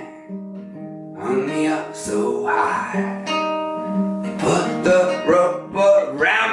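Nylon-string classical guitar with a capo, playing an instrumental passage of ringing chords between verses of a folk song.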